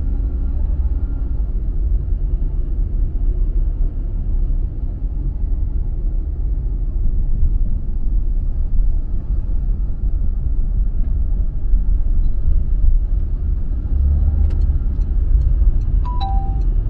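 Steady low rumble of a car being driven, with road and engine noise. Near the end a regular ticking starts, about two or three ticks a second, and a two-note falling chime sounds once.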